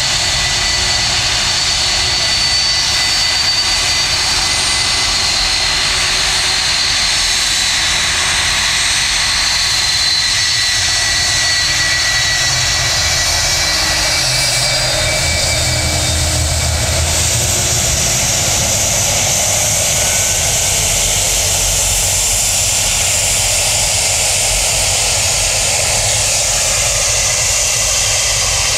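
Boeing 757-200 jet engines running at low power as the airliner taxis past: a steady loud hiss with a thin high whine, and a low rumble that swells briefly about halfway through.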